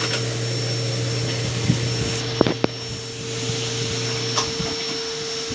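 Consul Facilite washing machine drain pump humming as it drains, over a steady rush of machine noise, with a couple of sharp clicks midway; the hum cuts out about four and a half seconds in. The pump is failing intermittently, which the owner puts down to play in the rotor making it jam.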